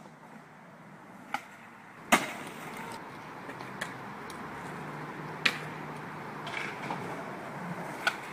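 Skateboard wheels rolling on paving during the run-up to a nine-stair ollie, with several sharp clacks from the board, the loudest about two seconds in; near the end a sharp pop as the tail is snapped for the ollie.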